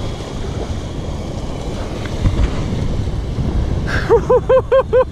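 Wind buffeting the microphone over the wash of surf on the beach. About four seconds in, a fast string of short, high, pitched calls starts, about five a second.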